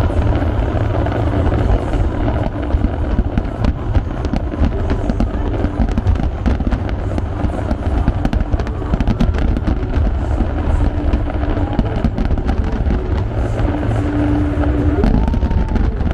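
Fireworks going off in quick succession: many sharp cracks and pops over a continuous low booming rumble.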